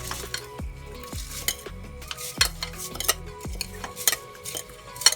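A spoon stirring rice in a pot of water, with scraping and several sharp clinks against the pot, over soft background music.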